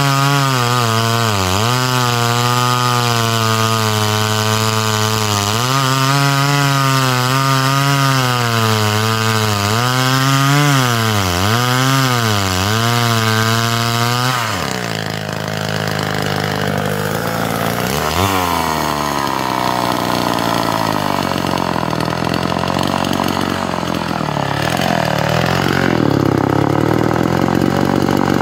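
Homelite C-5 two-stroke chainsaw at full throttle cutting through a thick log, its pitch dipping and recovering again and again under load. About halfway through it drops to a lower, rougher idle, with one brief rev a few seconds later.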